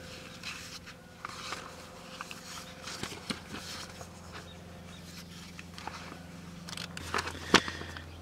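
Paper pages of a car owner's manual being handled and turned: soft rustling with small clicks, and a sharp snap about seven and a half seconds in as the book is shut.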